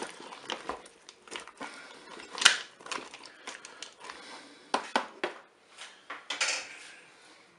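Wooden spatula stirring chunks of vegetables, chicken and pasta in a Cookeo multicooker bowl: irregular scrapes and knocks, the loudest about two and a half seconds in.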